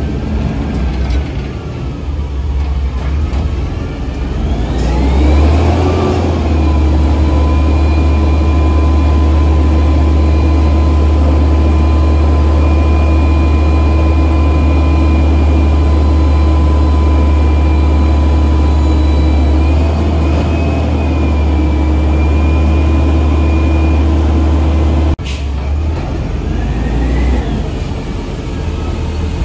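Mantis front-loader garbage truck's engine idling, then rising in pitch about five seconds in and holding a raised, steady speed with a deep drone for some twenty seconds. Near the end it cuts off abruptly and drops back to a lower, uneven idle.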